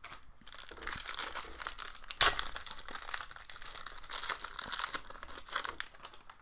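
Crinkling of a foil trading-card pack wrapper being handled and torn open, with one sharp, louder crackle about two seconds in.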